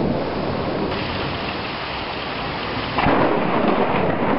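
Thunder rumbling over steady rain, with a sudden louder clap of thunder about three seconds in.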